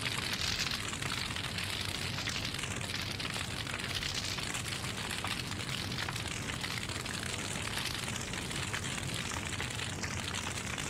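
Fire crackling with a steady hiss, over a faint low hum.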